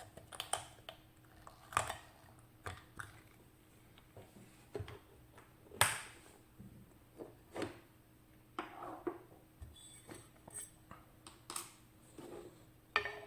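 Irregular sharp metallic clicks and clinks, about a dozen, the loudest about six seconds in, as a lock and metal tools are handled on a workbench.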